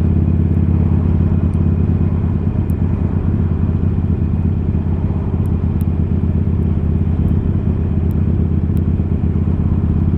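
Harley-Davidson Iron's air-cooled V-twin, fitted with a 1200 upgrade kit and Screamin' Eagle slip-on mufflers, running steadily while riding along.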